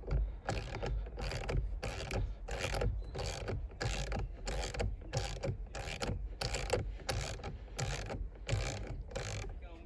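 Ratchet wrench clicking in quick repeated back-and-forth strokes, about two to three a second, undoing the M12 centre bolt of a steering wheel.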